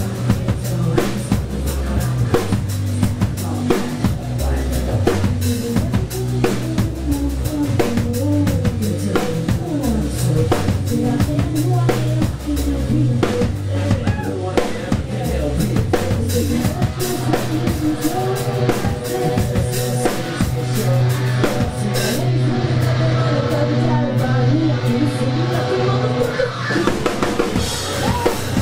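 Live rock band playing loud through a club PA: a driving drum-kit beat with electric guitars and bass. The cymbals drop away for a few seconds near the end while the guitars carry on.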